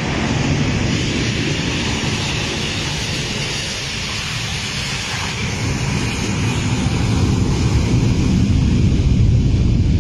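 Jet engines of a DHL Boeing 757 cargo plane running as it slides down the runway, a steady loud roar and hiss with wind rumbling on the microphone. The noise swells a little in the last few seconds as an airport fire truck drives past.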